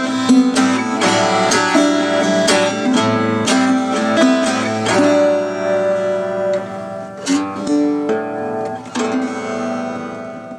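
1950s Berera Venezia 3/4 guitar with a spruce top and Martin Silk & Steel strings, playing the song's closing bars: a run of quick picked notes for about five seconds, then a few slower chords that are left to ring and fade out near the end.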